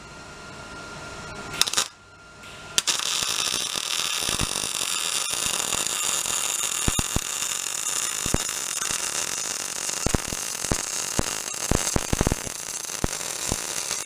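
Wire-feed (MIG) welder arc on steel: two short strikes, then from about three seconds in a continuous sizzling, crackling weld bead that stops abruptly at the end.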